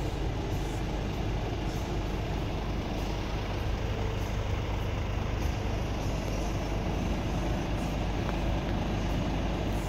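Scania S450's 13-litre straight-six diesel idling steadily, heard from inside the cab.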